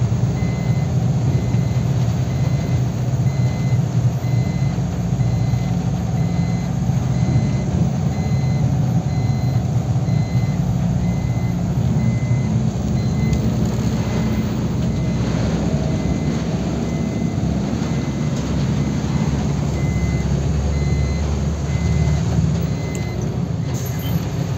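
Truck engine running steadily under way, heard from inside the cab with road noise. A faint high beep repeats evenly through much of it.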